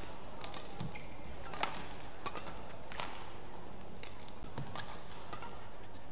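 Badminton rally: rackets strike the shuttlecock with sharp cracks about four times in the first three seconds, with a brief shoe squeak on the court floor, over the steady hum of an arena hall.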